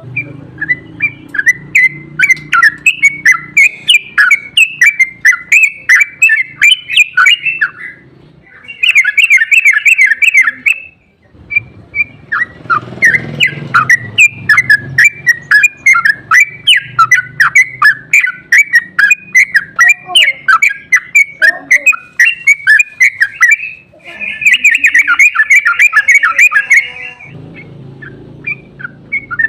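Yellow-vented bulbul (trucukan) singing its long, fast bubbling chatter, the "ropel" song used as a lure to make other trucukan answer. It is a run of quick chirping notes, broken twice by a dense rapid trill, once about nine seconds in and again about twenty-four seconds in.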